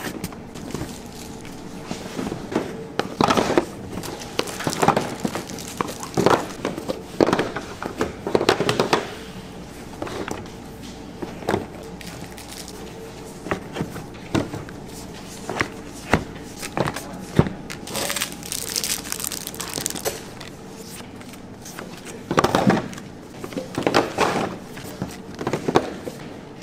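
Irregular knocks, clatter and rustling of handling work, over a steady machine hum.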